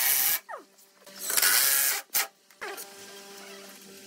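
Cordless impact driver driving screws into a wooden frame joint in short bursts, its motor pitch falling as it winds down after each one. Soft background music plays underneath.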